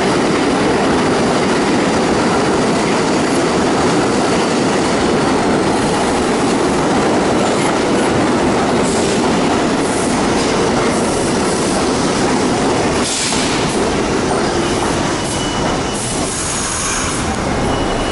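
R62A New York City subway train running into the station past the platform: a steady rumble of steel wheels on rail, with clatter over the track, easing a little as it slows for its stop. A thin, high squeal comes in near the end.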